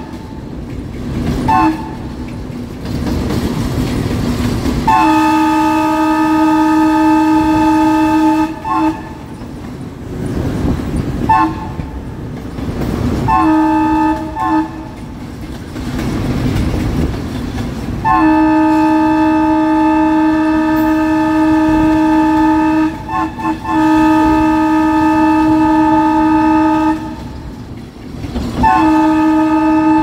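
Diesel locomotive air horn sounding again and again: short toots and long blasts of several seconds each, one chord of several tones. Between the blasts, the low rumble of the locomotive's diesel engine.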